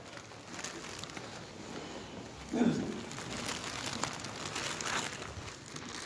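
Handling noise of a phone being moved around while it records: irregular rustling and rubbing against cloth, with scattered small knocks. A short murmur of a voice comes about two and a half seconds in.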